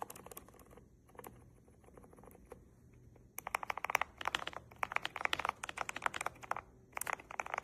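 Mechanical keyboard typed on, a few of its keys fitted with new EPOMAKER Creamy Jade linear switches: scattered single keystrokes at first, then fast, continuous typing from about halfway through until just before the end.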